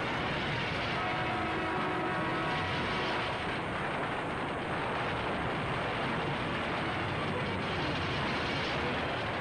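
Diesel train running along the track, a steady noise of engine and wheels from a film's soundtrack.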